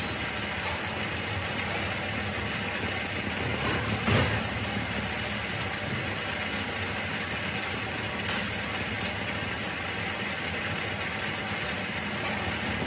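Workshop machinery running steadily, a constant hum under a noisy whir, with a sharp knock about four seconds in and another about eight seconds in.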